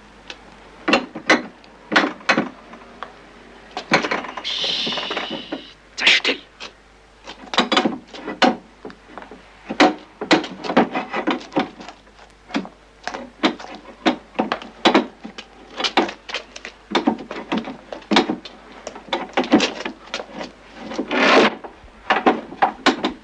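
A long run of sharp wooden knocks and clatters at irregular intervals, with a brief hiss about five seconds in and a louder rushing clatter near the end.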